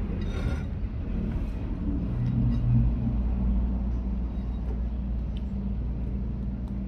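A motor running with a low, steady rumble that slowly grows quieter.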